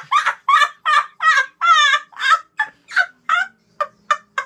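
A boy laughing hard: a long run of loud, high-pitched 'ha' bursts, about three a second, growing shorter near the end.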